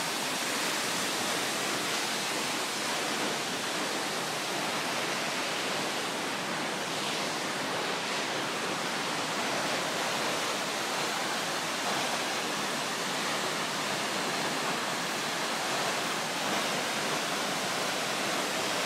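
Waterfall rushing steadily, an even, unbroken hiss of falling and splashing water.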